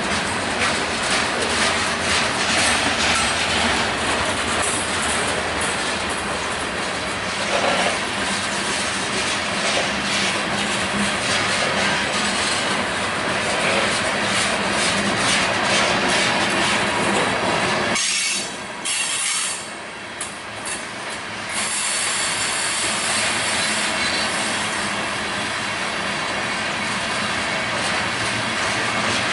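Freight train's covered hopper cars rolling past close by, a steady noise of steel wheels on the rails that briefly drops off about two thirds of the way through.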